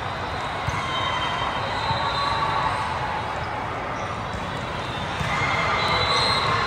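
Crowd noise in a volleyball gym: many voices at once, with several drawn-out high calls over the general din.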